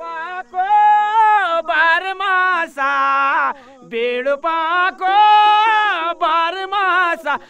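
A man singing solo without drums, in long held notes that bend up and down, with a quick rising glide about three seconds in.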